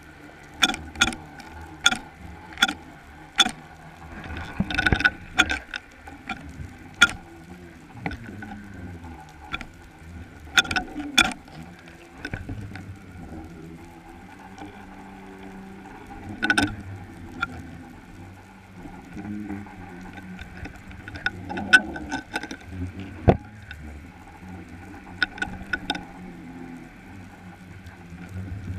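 Underwater sound at a baited bottom-fishing rig: irregular sharp clicks and knocks, many in the first half and a cluster near the end, over a steady low rumble with a few constant tones such as a boat's running gear makes when heard through the water.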